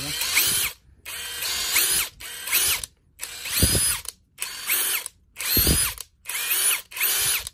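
Makita 173-style 18 V brushless cordless impact driver run unloaded in about eight short trigger pulls. Each pull is a whine that rises as the motor spins up and falls as it runs down, with brief pauses between.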